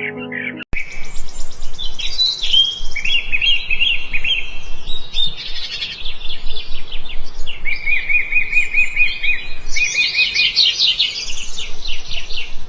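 Songbirds chirping and singing over a steady background hiss, with a run of quick repeated chirps about eight seconds in. A short stretch of music cuts off abruptly under a second in.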